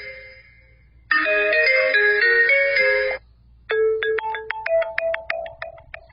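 Alcatel U5 ringtones: a melodic ringtone fades, plays its phrase once more and stops abruptly about three seconds in. After a brief gap a different ringtone begins, a tune of short, separate struck notes.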